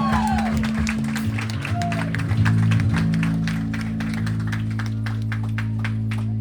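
Live band music, no singing: long held bass notes with a quick, even run of light ticks over them.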